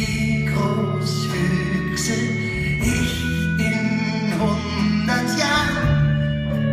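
Live folk band playing a song: guitars over a steady bass line and drums, with singing.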